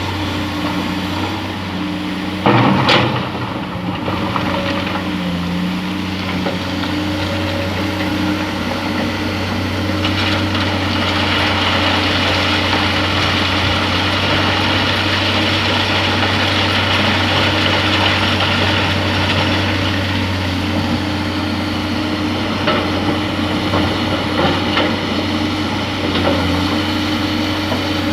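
Heavy diesel earth-moving machinery running steadily, with a loud clank about two and a half seconds in. A rushing noise rises about ten seconds in and fades near twenty, followed by a few lighter knocks.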